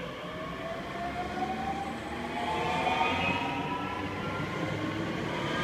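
DB Talent 2 electric multiple unit passing close by, its traction motors giving a whine that rises steadily in pitch as the train gathers speed, over the rumble of wheels on the rails.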